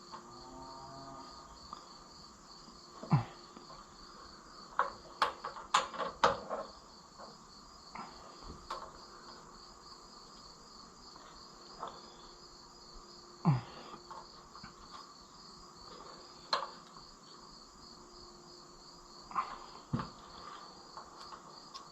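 Scattered clicks and knocks of hand tools on the valve rocker adjusters of an Oliver 66 tractor engine during valve lash adjustment, with a quick run of them in the middle and two louder single knocks. Crickets chirp steadily throughout.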